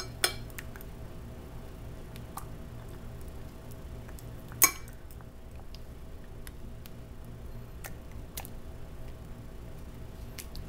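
Metal fork clinking against a coated frying pan while steaks are turned in broth: a sharp clink right at the start and a louder one about four and a half seconds in, with scattered lighter ticks over a steady low hum.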